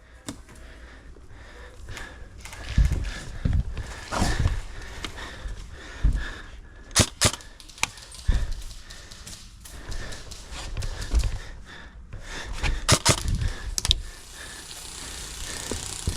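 Airsoft guns firing: a few sharp cracks in pairs about halfway through and again near the end, over irregular thumps and rustling of a player moving with a helmet-mounted camera.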